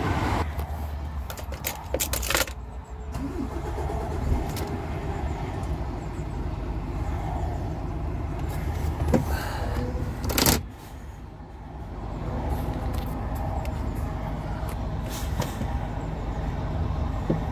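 Lorry's diesel engine running, heard from inside the cab, with a few clicks and knocks; about ten seconds in a loud knock is followed by a brief drop in the engine sound, which then builds up again.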